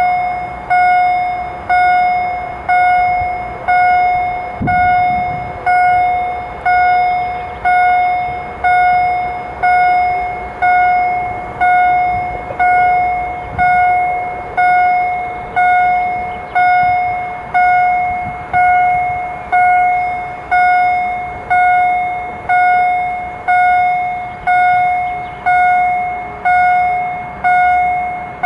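Railway level-crossing warning bell ringing steadily, one ringing strike a little more than once a second, each fading before the next. A freight train approaching underneath is faint.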